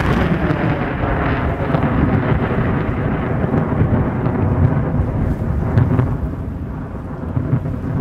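Thunderstorm: rolling thunder rumbling on without a break, with rain hissing behind it.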